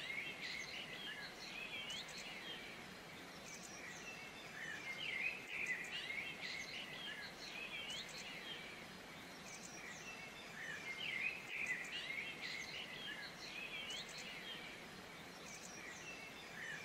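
Wild birds chirping and singing in short bursts every few seconds, with quick chirps and brief rising whistles, over a faint steady hiss of ambience.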